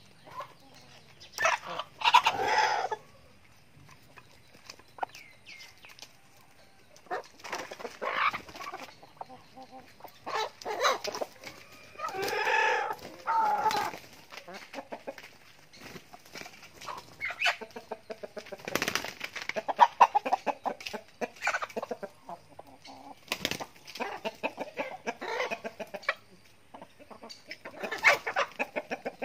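Backyard chickens clucking in repeated bouts of calls, with short clicks scattered in between.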